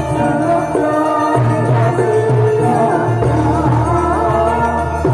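Javanese gamelan ensemble of hanging gongs, pot gongs and kendang drum playing a steady piece, with a singer's voice coming in over it from about a second and a half in.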